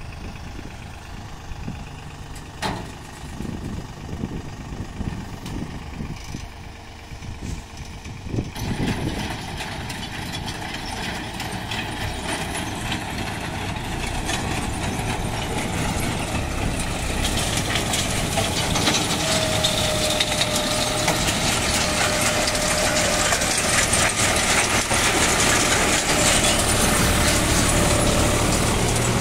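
New Holland tractor engine running as it pulls a tractor-mounted stone picker through tilled soil. About eight seconds in, a dense rattling clatter of soil and stones passing through the machine sets in and keeps growing louder, with a thin steady whine near the end.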